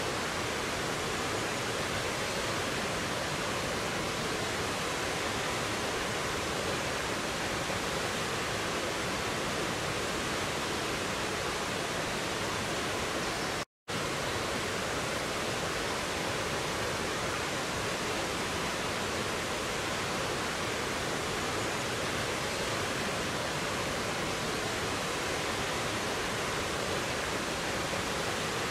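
Rocky mountain stream rushing over boulders and a small waterfall: a steady, even rush of water, broken once about halfway through by a split-second dropout to silence.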